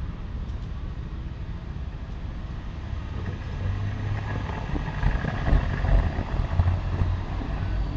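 Low, steady rumble like a motor vehicle's engine, growing louder about halfway through.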